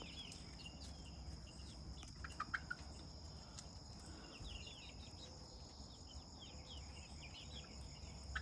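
Night-time insect chorus: crickets trilling steadily at a high pitch, with repeated bursts of quick chirps. A few short calls come about two seconds in.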